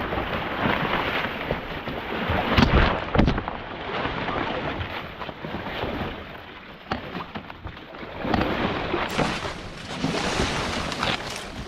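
Wind rumbling on the microphone, with rustling and a few knocks, the heaviest about three seconds in.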